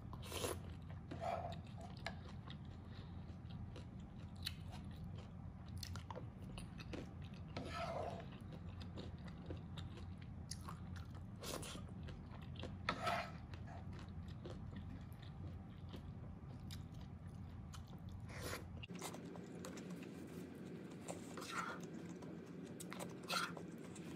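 Close-up chewing and wet mouth sounds of a person eating mapo tofu, with scattered sharp clicks. A steady low hum runs underneath and drops away about three-quarters of the way through.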